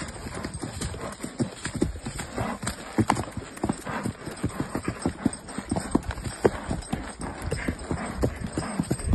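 A ridden horse's hooves striking dirt ground in a quick, even run of short steps, several hoofbeats a second.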